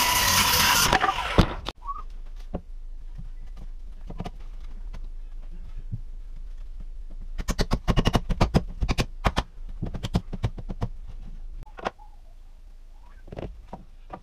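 A DeWalt circular saw finishes a cut through a 2x4 in the first second and a half, with a steady whine under the noise of the blade. Later comes a quick run of knocks and taps, wood on wood, as lumber is fitted into the wall framing.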